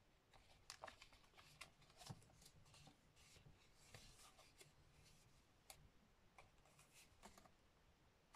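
Near silence broken by faint rustles and light taps of cardstock being handled, and small paper pieces pressed onto a card.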